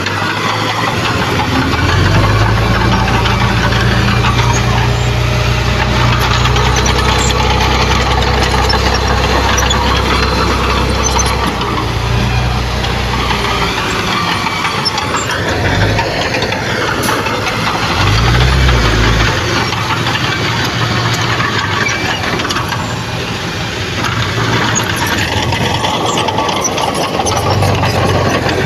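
Heavy diesel earthmoving machine's engine running under changing load. Its low drone is strong for the first ten seconds or so, drops back, returns in short surges, and picks up again near the end, over a steady mechanical clatter.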